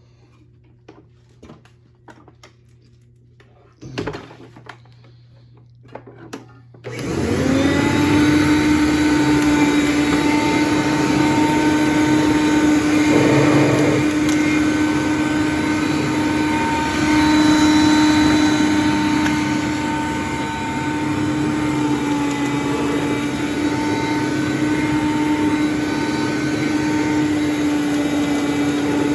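A few clicks and a knock, then about seven seconds in a Hoover Conquest upright vacuum cleaner is switched on, its motor winding up in pitch and then running steadily with a strong whine.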